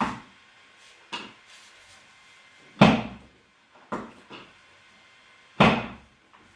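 Heavy thumps on a treatment table during chiropractic adjustments: three strong thuds about three seconds apart, with lighter knocks between them.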